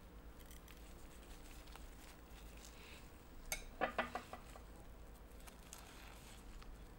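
Boiled taro being peeled by gloved hands over a plastic colander in a steel bowl: faint soft handling of the wet skins, with a brief cluster of light clinks and knocks of kitchenware about halfway through.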